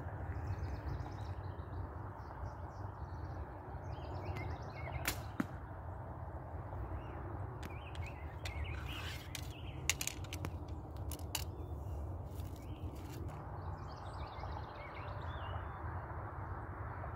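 Outdoor ambience: a steady low wind rumble on the microphone, with birds chirping now and then and a few sharp clicks, the strongest about ten seconds in.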